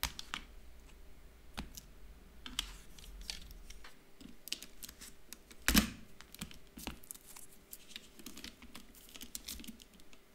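Plastic Lego Technic parts being handled and fitted together by hand: irregular light clicks and clatter, with one louder knock about six seconds in.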